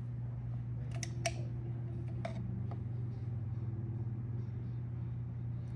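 A few short, sharp clicks from a hand caulking gun as it dispenses silicone, about one second in, again just after, and once more past two seconds. A steady low hum runs underneath.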